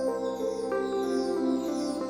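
Background music: soft ambient keyboard and synthesizer music with sustained notes shifting in pitch and a repeating shimmering figure high up.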